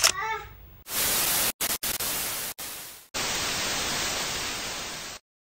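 Static-like white noise in short bursts that cut on and off abruptly over about two seconds, then a steady hiss for about two seconds that stops dead into complete silence. It is an edited-in static effect.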